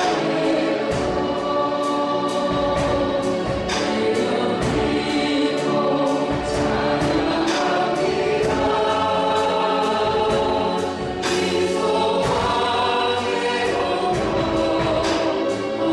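Praise team singing a contemporary Christian worship song with a band, held sung notes over a steady drum beat.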